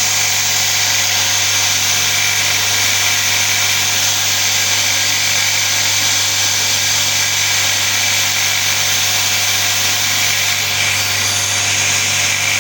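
Homemade 2x72 belt grinder running steadily: a low motor hum under the hiss of the abrasive belt, with no change in speed.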